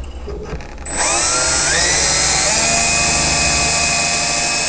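Cordless drill starting about a second in, drilling a tuner screw hole in the guitar's wooden headstock. Its motor whine climbs in pitch as it speeds up, then runs steady.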